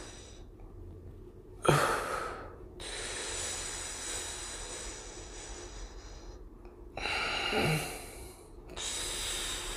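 A man breathing hard twice, in sudden, forceful breaths about two seconds in and again about seven seconds in, as he braces his core with belly breaths.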